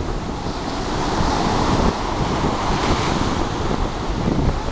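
Sea waves breaking and washing up the shore. One wave's hiss swells about a second in and fades after about three and a half seconds, with wind rumbling on the microphone.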